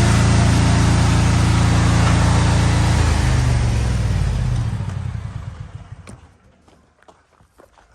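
Lawn-care power equipment engine running at full throttle with a rush of fan air, then shut off: its pitch drops and it spins down and dies away over about three seconds. A few light knocks follow.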